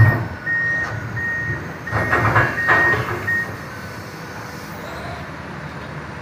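Excavator travel alarm beeping, about one and a half beeps a second, stopping about three and a half seconds in, over a running diesel engine. A heavy knock comes right at the start, and a quick run of knocks follows two to three seconds in.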